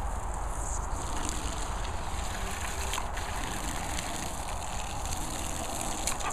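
Water splashing and sloshing in a black plastic tub, a steady churning without pauses.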